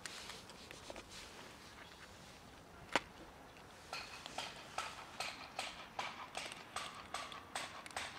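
A single sharp knock about three seconds in, a plastic food dish being set down on asphalt, followed by several cats crunching dry kibble from it, a quick run of crisp crunches several times a second.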